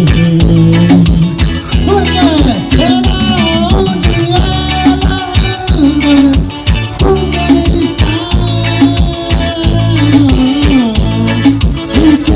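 Live forró band music, loud, with a steady driving beat.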